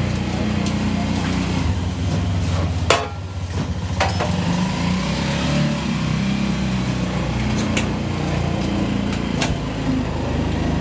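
Street-stall ambience: a steady, low mechanical hum like an engine running, with scattered clicks and clatter and a sharp knock about three seconds in. Faint voices are in the background.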